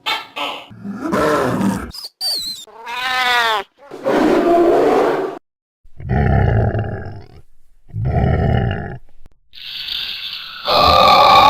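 A string of short cartoon monster sound effects: quick squeaks and a wobbling pitched tone, then several low growling roars of about a second and a half each. Near the end a loud, steady noise with held tones starts.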